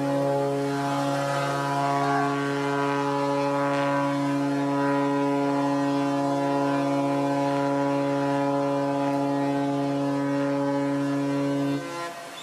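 Ship's horn sounding one long, unbroken blast at a fixed pitch, cutting off abruptly shortly before the end.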